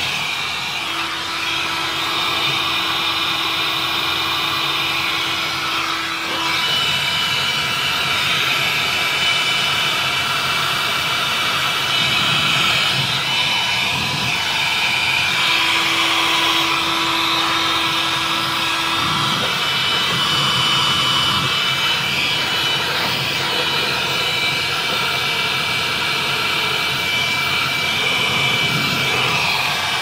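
Electric heat gun blowing steadily, its fan running with a fixed whine, aimed at the frost-choked evaporator coil of a freezer to melt the ice. A low hum joins in twice, for a few seconds each time.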